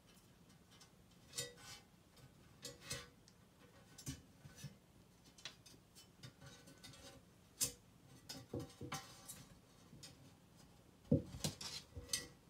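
Faint, scattered taps and scrapes of a kitten's paws on a shelf and a carpeted stool, with a louder knock about 11 seconds in as it jumps up onto the shelf.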